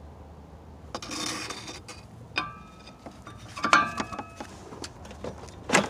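Steel fan-clutch nut wrench and holding tool clanking against the fan clutch nut and water pump pulley while the nut is broken loose: a short scrape about a second in, then a few sharp metal clanks that ring briefly, the loudest a little past halfway and another at the end.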